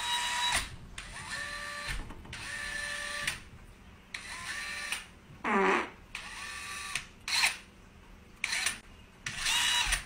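Cordless drill run in about ten short trigger bursts. Each time the motor whines up to speed and winds back down.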